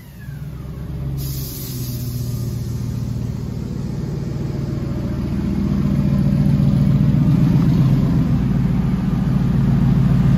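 The 5.0 L Coyote V8 of a single-turbo 2018 Mustang GT, its revs falling back at the start after a dyno pull, then idling steadily and growing louder over the first several seconds. A brief hiss comes in about a second in.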